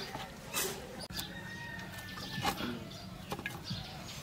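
Quiet outdoor background with a few scattered light clicks and taps and faint bird calls, including a thin high note held for about a second near the middle.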